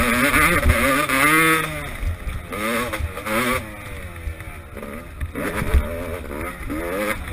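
Motocross bike's engine heard from on board, its pitch rising and falling over and over as the throttle is opened and shut. It drops to a quieter off-throttle stretch about halfway through, then revs up again.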